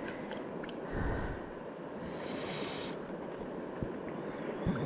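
Steady rush of river current, with a brief splash of water about halfway through as ayu are handled in a landing net held in the water.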